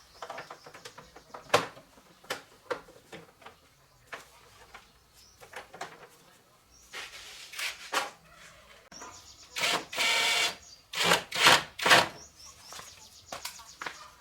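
Hand work on motorbike parts: irregular clicks and knocks of tools and metal pieces, with several short scraping or hissing strokes in the second half, the loudest a steady hiss of about a second.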